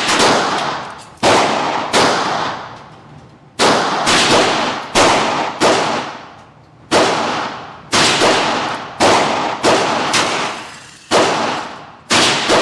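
Ruger Single Six Convertible single-action revolver firing .22 rimfire rounds, about fourteen sharp shots at uneven half-second to second-and-a-half spacing. Each shot rings on in a fading echo off the indoor range.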